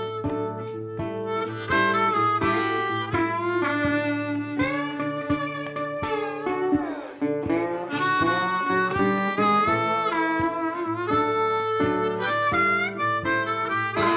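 Background music: a harmonica playing a tune over acoustic guitar.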